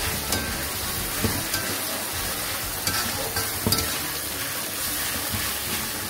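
Chopped onion and tomato in chilli paste sizzling as they fry in a metal wok, stirred with a metal spatula that scrapes and knocks against the pan a few times.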